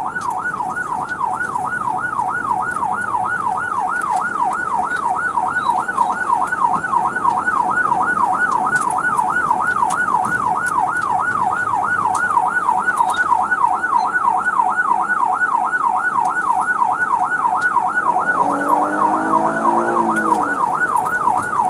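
Police cruiser siren in yelp mode, its pitch sweeping rapidly up and down about three times a second.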